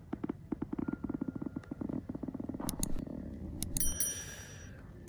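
A small device buzzing in rapid, even pulses that stops about three seconds in, followed by a few sharp clicks.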